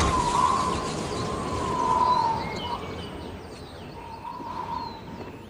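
Birds chirping and twittering over outdoor ambience, with a held, slightly wavering whistling tone underneath that fades after about two and a half seconds and comes back briefly about four seconds in. A short knock sounds at the very start.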